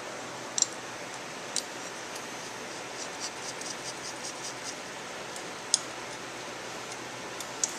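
A few sharp metallic clicks and a run of light ticks as the cam chain roller wheel and its bolt are fitted by hand, over a steady background hiss.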